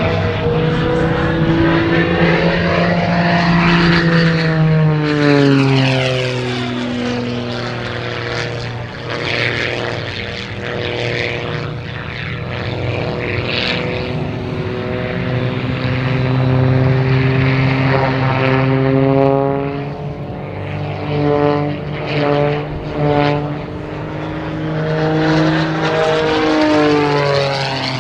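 Edge 540 aerobatic plane's six-cylinder Lycoming piston engine and propeller running hard through an aerobatic display. The drone keeps rising and falling in pitch as the plane climbs, dives and passes. About three quarters of the way through it swells and dips several times in quick succession.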